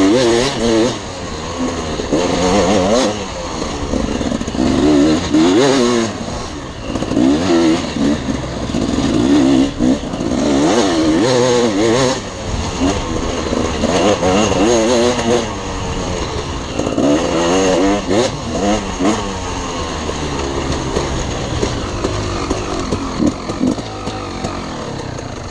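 Dirt bike engine revving hard at speed, its pitch climbing and dropping every second or two as the rider opens and closes the throttle along the trail.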